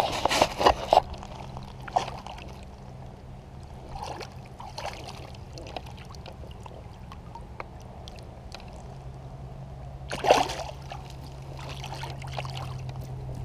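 Shallow water splashing and sloshing as a smallmouth bass is grabbed and lifted out by hand. There are smaller splashes while it is held, then one louder splash about ten seconds in as it is put back and released.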